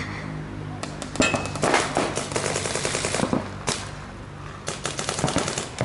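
Paintball markers firing rapid strings of shots, a fast crackle of pops. The firing starts about a second in and runs for roughly three seconds, pauses briefly, then resumes near the end.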